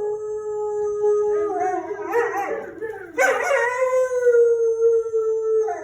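Pet dog howling. A long, steady howl breaks into a wavering yodel, then a second howl starts sharply about three seconds in, slides down and holds a steady note.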